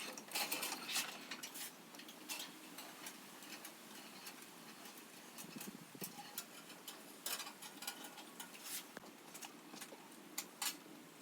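Faint, irregular light clicks and taps of screwdrivers and coiled copper wire being handled and set in a metal toolbox drawer, a few sharper clicks among them.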